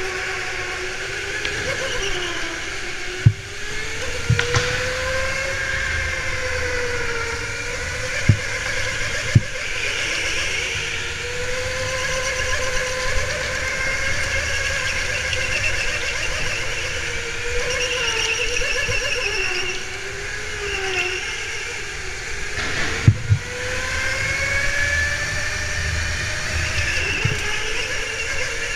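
Go-kart heard from on board while racing, its drive whine rising and falling with speed through the corners, with a few sharp knocks along the way.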